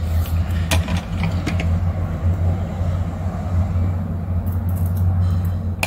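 A steady low hum, with a few faint clicks and rustles from washi tape and paper being handled.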